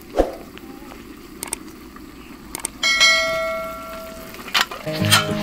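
Subscribe-button sound effect: a few sharp mouse clicks and a notification bell chime that rings for about a second and a half before fading. Underneath is the low steady hiss of the wood-fired stove and the simmering pot. Music begins near the end.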